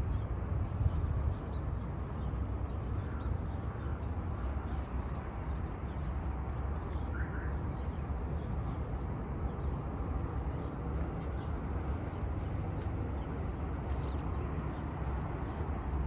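Steady low outdoor rumble with scattered faint ticks and one brief short call about seven seconds in.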